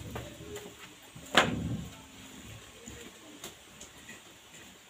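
Eating rice by hand from a steel plate: fingers mixing and scraping the rice against the plate. One sharp knock about a second and a half in, and a lighter click near three and a half seconds.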